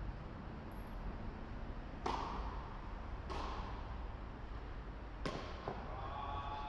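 Sharp racket-on-ball hits in a singles rally, four strikes spaced unevenly, with the loudest about two seconds in and a quicker pair near the end.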